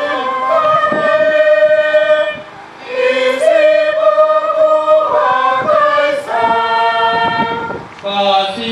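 Voices singing a slow chant of the Passion of Jesus in long held notes, breaking off briefly about two and a half seconds in and again near the end.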